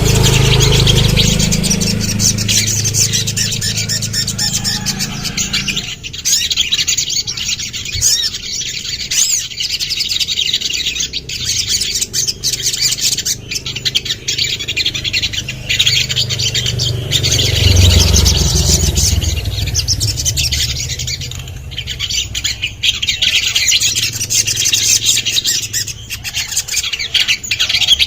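A sogon (sogok ontong) singing in a rapid, continuous run of high chirps, trills and sharp calls. A low rumble sits under it in the first few seconds and again about eighteen seconds in.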